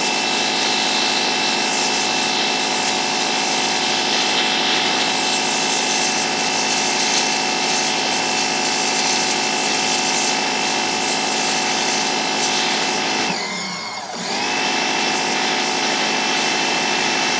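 Pressure washer at about 4,200 PSI firing a 0-degree jet into a pumpkin: a steady high hiss over a steady pitched whine as the jet cuts a hole through the rind. About thirteen seconds in the whine drops away briefly, then picks up again.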